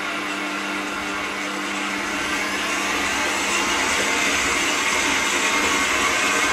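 Kenwood kMix stand mixer running steadily, beating caramel into buttercream in its steel bowl; the motor noise grows a little louder a few seconds in.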